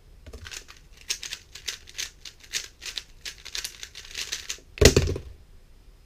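Rapid clicking and clacking of a GAN356 Air Ultimate speedcube's plastic layers being turned fast through a 4.44-second solve. About five seconds in, a single loud thump sounds as the solved cube is set down on the laptop and the timer is stopped.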